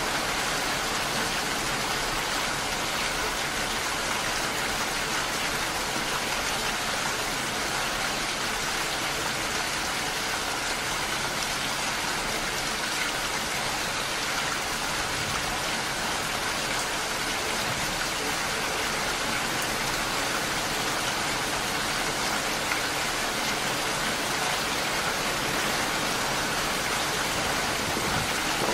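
Steady rain falling, an even, unbroken hiss of drops with no let-up.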